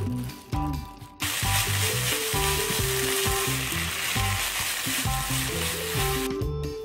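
Rehydrated dried chwinamul (aster greens), already seasoned, sizzling in a hot wok as they are tossed with wooden chopsticks and a spoon. The sizzle starts about a second in and stops shortly before the end. Background music plays throughout.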